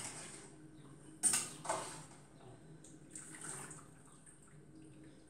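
A metal utensil clinking a few times against an enamel pot, with water dripping and splashing, as blanched leaves are lifted out of the hot water onto a plate. The loudest clinks come two in quick succession about a second in.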